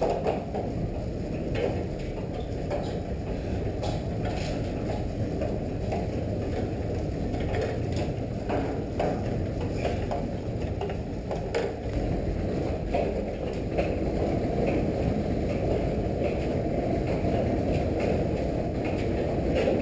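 Steady low rumble with scattered metallic clicks and clanks from heavy machinery being moved.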